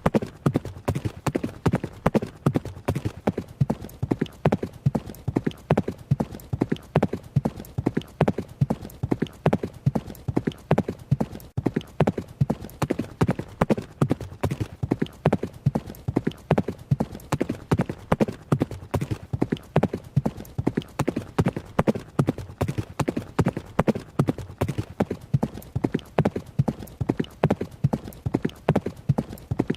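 Hooves of a running horse striking the ground in a quick, steady rhythm of several hoofbeats a second, never letting up.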